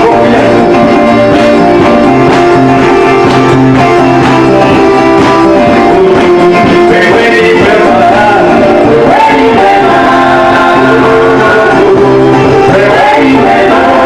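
Loud music with singing over instruments, including a guitar, with a steady bass line and held sung notes.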